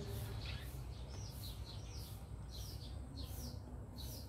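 Small birds chirping: repeated short, curved chirps, roughly two a second, over a steady low hum.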